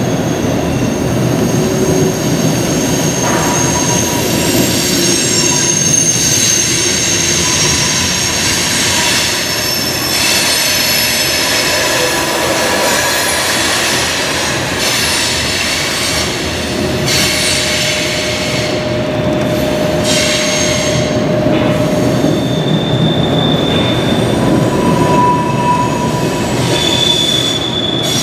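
Freight train cars rolling past at close range, a steady loud noise of wheels on rail with high thin wheel squeals that come and go throughout.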